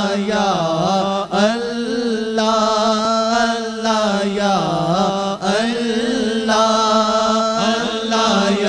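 Naat, an Urdu devotional song: a solo voice sings long, wavering, drawn-out phrases with no drumbeat behind it.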